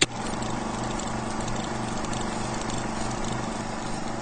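Old film projector sound effect: a steady whirring clatter with hiss and a low hum, pulsing evenly, starting and stopping abruptly with a click.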